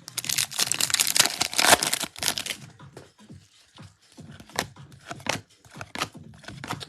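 A baseball card pack wrapper is torn open and crinkled for about two and a half seconds. Scattered crinkles and clicks follow as the cards are handled.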